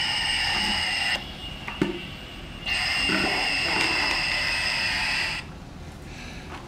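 Electronic sound effect from a children's airplane sound book's button panel, played twice through its small speaker: a steady electronic hum lasting about a second, then a longer one of about three seconds, with a single click between them.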